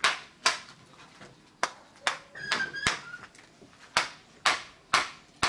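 Mallet striking a steel chisel as it cuts into a wooden elephant carving held in a vise. About eight sharp knocks, mostly in pairs about half a second apart.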